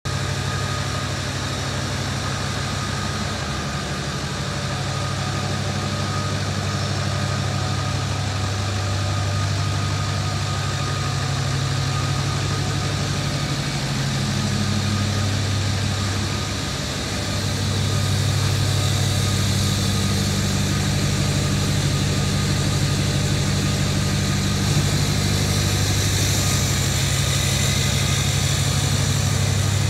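2007 Ford F-250's 6.0 L Power Stroke V8 diesel idling steadily, a little louder in the second half.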